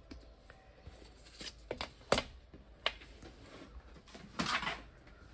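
Paper and card being handled on a craft table: a few light clicks and taps, then a brief rustle near the end.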